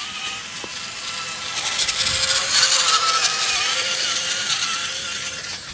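The small electric motor and gears of a radio-controlled toy monster truck whining as it drives over concrete, its pitch wavering with the motor's speed. It grows louder about a second and a half in as the truck comes close, then eases off.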